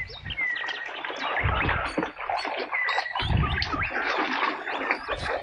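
Muddy plastic toy guns being handled in mud and water: a busy clutter of wet clicks, knocks and splashes, with a couple of dull thumps. A bird chirps briefly a few times.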